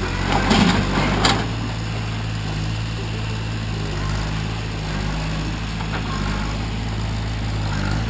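Tractor engine running steadily under load, pulling on a chain. About half a second in comes a loud, noisy burst lasting about a second.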